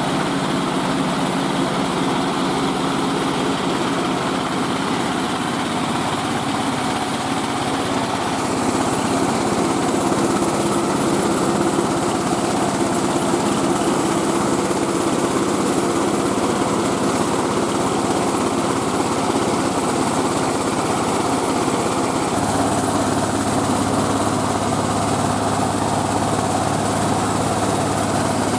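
Engine of a travelling rice-milling machine running steadily, the sound growing slightly louder and fuller about eight seconds in, with a steady low hum joining about 22 seconds in.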